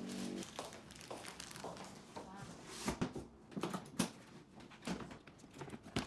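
Clear plastic bags and packaging crinkling as they are handled, with a few sharp clicks and knocks.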